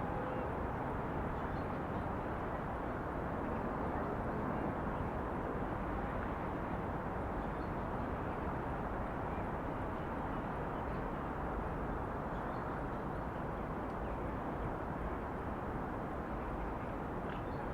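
Steady hum of distant city traffic, with a few faint bird calls here and there.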